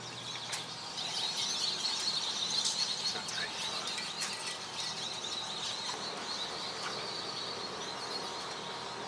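Birds chirping and twittering in a dense, steady chorus, which thickens about a second in.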